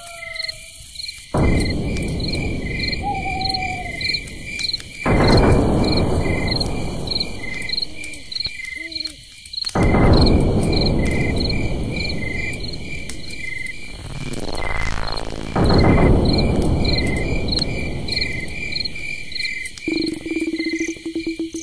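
Eerie ambient sound-design track: steady, evenly spaced cricket-like chirping under loud hissing swells that cut in and out abruptly several times, with a sweeping whoosh past the middle and a low held tone near the end.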